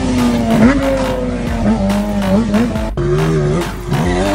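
Sportbike engine revving hard as the rear tyre spins in a burnout, with tyre squeal. The engine pitch sinks, jumps up about half a second in, then steps up and down with blips of the throttle. About three seconds in, it breaks off sharply into a different engine sound.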